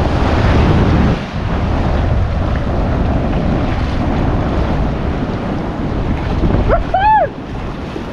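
Wind buffeting the microphone over the steady wash of surf on the shore. About seven seconds in comes one short call that rises and falls in pitch.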